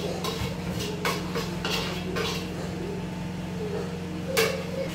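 A spoon knocking and scraping on a plastic bowl and the rim of a steel cooking pot as seasoning is tipped into soup: a handful of separate clinks, the sharpest near the end, over a steady low hum.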